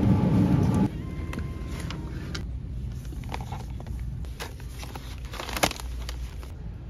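Shop ambience: a loud rushing noise for about the first second, then a steady low hum with scattered clicks and crackles of a plastic clamshell cookie package being handled, one sharper click near the end.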